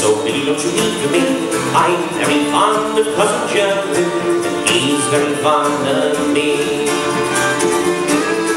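Irish folk band playing live: fiddle carrying the melody over strummed acoustic guitar and mandolin.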